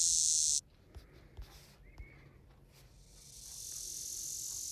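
Recorded cicada songs played back one after another: a steady high buzz cuts off suddenly just over half a second in, a few faint clicks follow, and another steady high buzz fades in about three seconds in and slowly grows louder.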